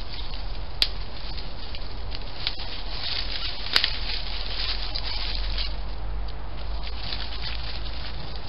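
Badger foraging in dry leaf litter: crackling rustles over a steady hiss, busiest in the middle, with two sharp clicks about a second in and near four seconds in.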